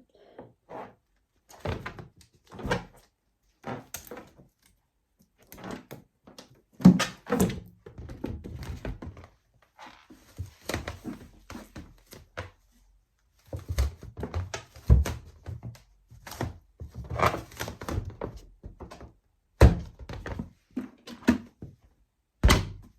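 Balloons being handled and popped: a string of sharp pops and dull thuds at irregular intervals, a few of them much louder than the rest, with quieter rubbing and knocking between.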